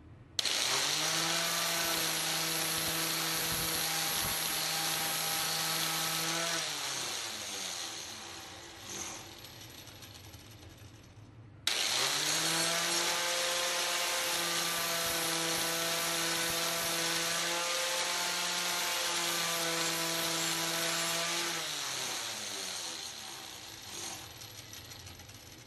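Bench-mounted angle grinder with a flap disc, switched on twice; each time it runs at a steady whine with a hiss of grinding as a small piece of steel is held against the disc, then is switched off and winds down with falling pitch.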